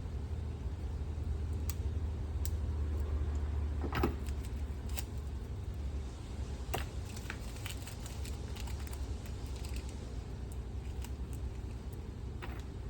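Scattered small clicks and taps from wires and switch hardware being handled while wiring a switch box, over a steady low hum. The sharpest knocks come about 4 seconds and just under 7 seconds in.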